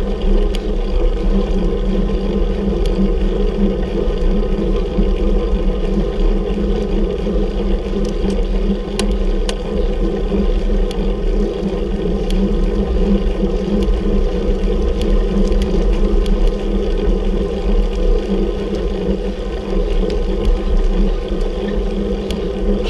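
Steady mechanical whir and rumble of a road bicycle climbing, with a few faint clicks.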